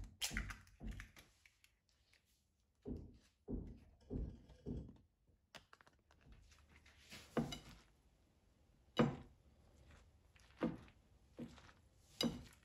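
Hands mixing shredded courgette and carrot with flour on a ceramic plate: about a dozen irregular dull thunks, knocks and soft scuffs of hands and vegetables against the plate.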